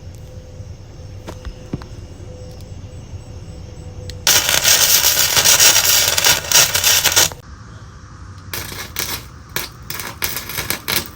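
Wire-feed welding gun arc crackling loudly for about three seconds while a bead is run, then a quick string of short crackling bursts as short welds are struck, welding a foot peg onto a steel dirt-bike frame.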